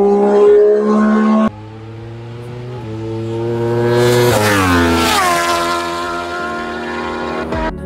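Motorcycle engine revving high, cut off abruptly about a second and a half in; then a motorcycle approaching at speed, passing close with a sharp drop in pitch and fading away.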